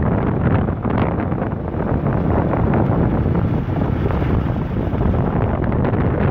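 Wind buffeting the microphone: a loud, continuous low rumble that rises and falls in gusts.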